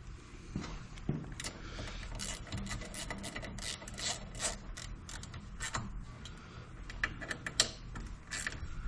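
Hand ratchet wrench clicking in quick, irregular strokes as the highway peg mount's bolts are tightened onto the crash bar.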